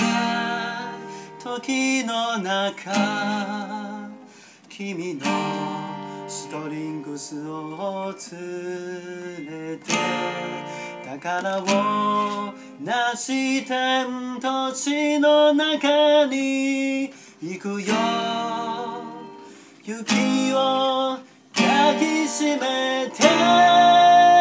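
A man singing to a strummed acoustic guitar, with a Roland digital accordion playing along. About a second before the end, a long, steady accordion chord comes in and the music grows louder.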